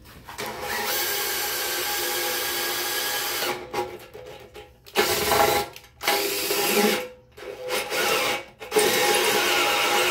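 Electric drill boring a hole through the wall of an aluminium engine oil pan. It runs steadily for about three seconds, stops, runs in three short spurts, then runs steadily again near the end.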